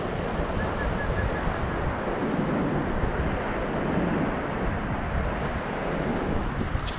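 Sea surf washing up a flat sandy beach in a steady, even wash, with wind buffeting the microphone.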